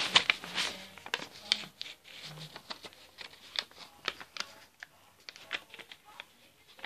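A sheet of paper being folded and creased by hand close to the microphone: irregular crinkles and sharp taps, busiest in the first two seconds and fainter after.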